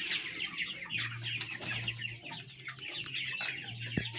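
A brood of young Brahma chicks peeping continuously, many short high chirps overlapping.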